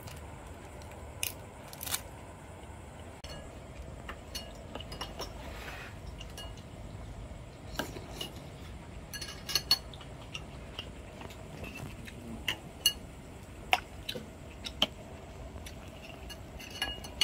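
Metal ladle clinking and scraping against an aluminium cooking pot and a ceramic bowl while soup is served, in scattered sharp clinks over a low steady hum.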